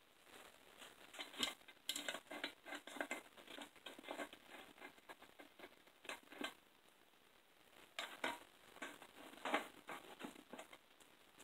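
Faint, irregular metallic clinks and rattles of valve cover bolts being handled and set into a valve cover by hand, in several quick clusters.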